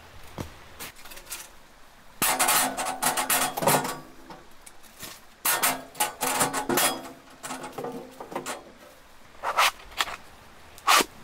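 Sheet-metal wood stove parts clattering and scraping as they are handled, in two spells with a ringing metallic note through them. Near the end, two short scrapes as a cardboard box of wooden firelighters is slid open.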